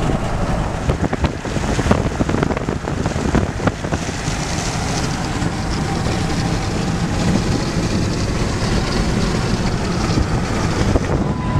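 Road and wind noise inside a moving car: a steady rumble and rushing hiss, with a few short clicks in the first few seconds.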